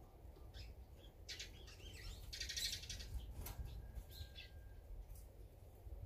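Small wild songbirds chirping faintly: a quick flurry of high chirps between about one and three seconds in, then a few scattered calls, over a low steady background rumble.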